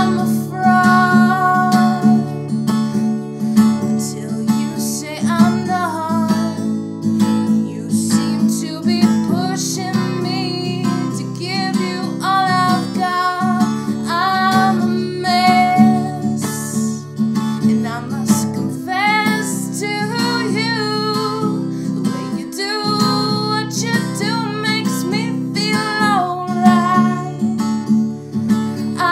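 A woman singing to her own strummed acoustic guitar, a sung melody over steady chords.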